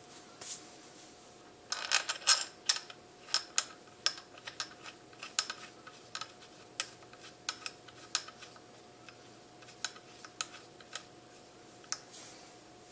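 Light metallic clicks and clinks of small bolts being handled and fitted at the motorcycle engine's water pump housing, a quick irregular run that starts about two seconds in and thins out toward the end.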